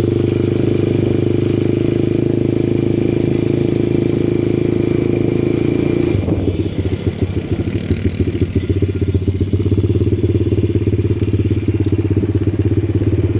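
ATV engine running steadily. About six seconds in its note drops and turns into a rapid, uneven pulsing as the throttle eases, then settles into a steady putter.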